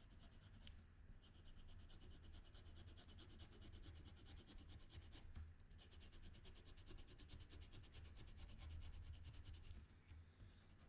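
Felt-tip marker colouring on paper: faint, quick back-and-forth scribbling strokes in runs, with brief pauses about a second in and about five seconds in, stopping shortly before the end. A low steady hum lies underneath.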